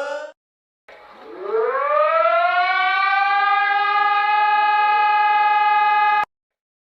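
Warning siren winding up from a low pitch over about a second and a half, then holding one steady tone before cutting off abruptly near the end.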